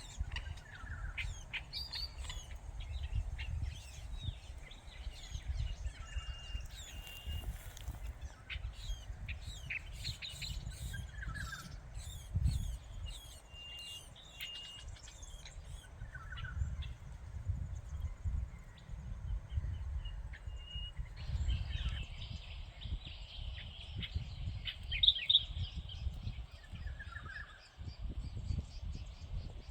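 Wild birds calling and chirping again and again, over a low rumble of wind on the microphone. A denser high chatter joins about two-thirds of the way through.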